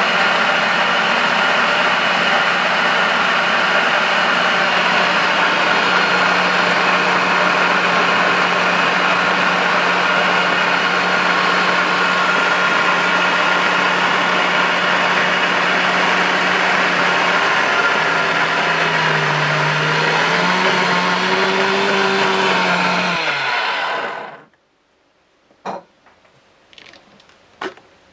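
Stadler Form Blender Five's motor running at full speed, blending a thick lemon purée. Near the end its pitch dips and then rises, and it runs down and stops. A few light knocks follow.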